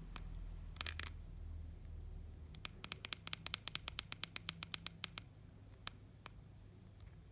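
Mobiwire Sakari mobile phone's buttons being pressed. There is a short cluster of clicks about a second in, then a quick run at about six clicks a second for a couple of seconds, then a few scattered presses.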